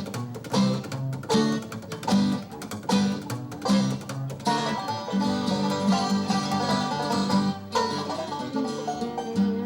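Live bluegrass band playing banjo and guitar to a steady picked beat, with busier picking in the middle, settling into a held, ringing chord near the end.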